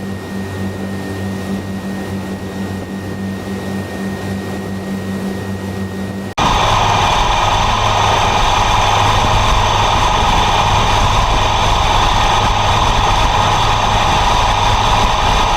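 Engine running with a steady low hum and a faint high whine; about six seconds in it cuts abruptly to a louder, rougher engine noise with a strong rumble.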